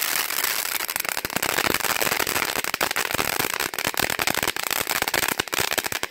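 Ground fountain firework spraying sparks: a steady hiss packed with rapid crackling pops.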